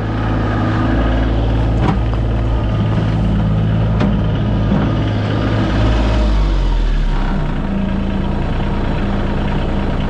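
Kioti CX2510 compact tractor's three-cylinder diesel engine running steadily. About seven seconds in, its tone changes and the deepest rumble drops away.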